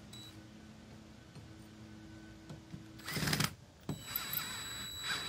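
Cordless drill/driver with a 5/16-inch nut driver bit driving a masonry anchor screw through an iron pipe floor flange into brick, with a short louder burst about three seconds in and a click just before four.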